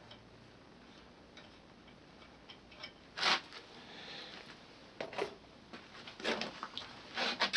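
A few scattered sharp clicks and taps against a quiet background, the loudest about three seconds in: small pen-turning parts and tools being handled at a stopped lathe while the mandrel is loosened.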